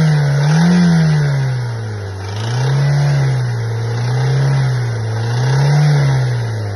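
Toyota 1ZZ-FE 1.8-litre four-cylinder engine revved up and down about four times, its note rising and falling. The owner describes a constant crackling from this engine whenever it is put under load.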